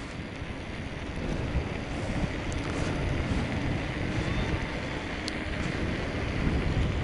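Wind buffeting the microphone of a camera mounted on a moving bicycle: a steady low rush from the air and tyres rolling on asphalt, with a couple of faint clicks.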